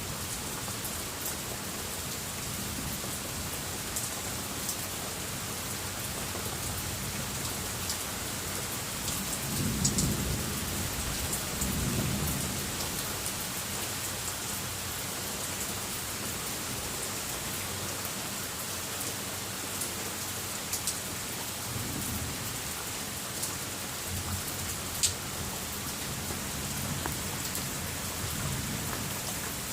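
Steady rain falling, with scattered sharp drips. Thunder rumbles twice about ten seconds in, and fainter rolls of thunder come later on.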